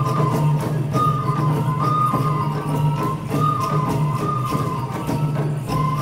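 Traditional koma odori (horse dance) folk music: a high flute melody that steps between a few notes, over regular drum strokes and jingling percussion.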